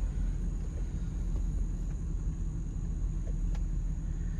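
Steady low rumble of a car driving slowly, heard from inside the cabin, with a faint steady high tone above it.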